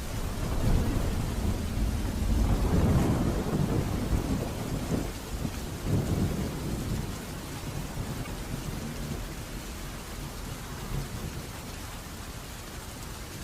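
A roll of thunder over steady rain: a deep rumble swells right away, peaks a few seconds in with a second surge, then dies away under the rain.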